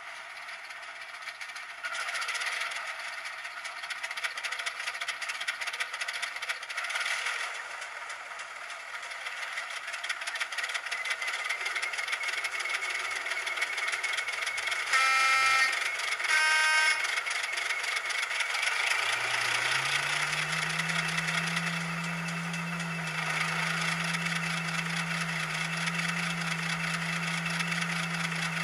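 Diesel locomotive sound from a DCC sound decoder played through a tiny 21x11x4mm sugarcube speaker, thin with little bass: the engine runs with a rattle, two short horn blasts of different pitch sound about halfway through, then the engine note climbs and holds as a steady low hum.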